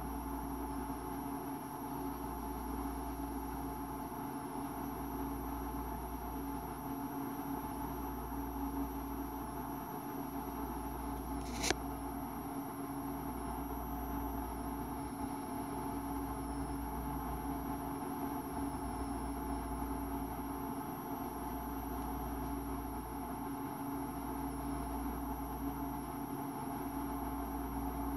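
Steady electrical-sounding hum made of several held tones over a low rumble that pulses on and off every couple of seconds, with a single sharp click about twelve seconds in.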